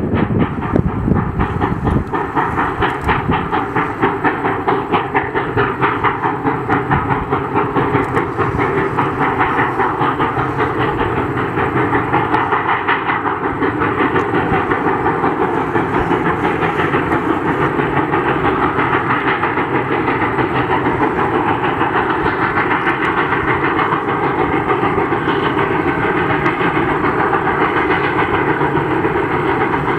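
Steam-hauled freight train rolling past: a continuous rattle and clatter of steel wheels on the rails. The clatter pulses more strongly in the first dozen seconds, then settles into a steadier run.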